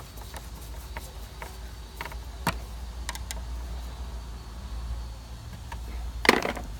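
Hand tools working on car engine parts: scattered light clicks and taps, with a louder clatter about six seconds in, over a steady low hum.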